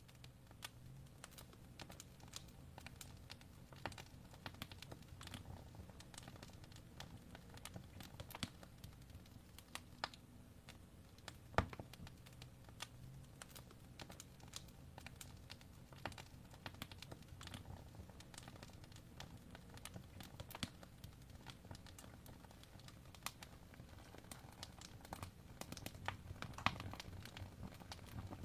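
Wood fire in an open fireplace crackling: irregular sharp pops and snaps over a low steady rumble of the flames, with one louder pop about twelve seconds in.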